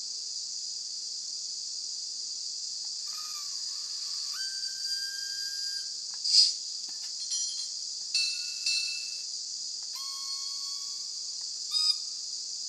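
Steady steam hiss from the DCC sound decoder in a Minitrains Decauville H0e model steam locomotive standing still, with faint thin whistle-like tones and a few short sharp sounds over it, the loudest about six seconds in.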